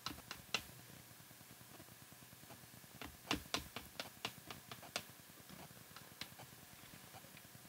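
Light taps of a small ink-bottle cap dabbing Daler-Rowney FW pearlescent acrylic ink onto watercolour paper on a table. There are a few taps at the start, a quicker run of about nine in the middle, then one or two more.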